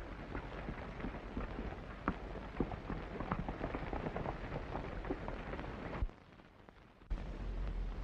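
Hoofbeats of several horses galloping, many irregular knocks over a steady hiss. The hoofbeats stop about six seconds in, and after a second of near quiet the hiss returns without them.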